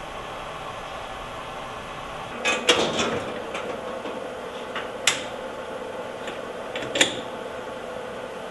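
Metal tool parts on a lathe's tool post being handled: a cluster of sharp metallic clacks about two and a half seconds in, then single clacks near five and seven seconds, over a steady hum.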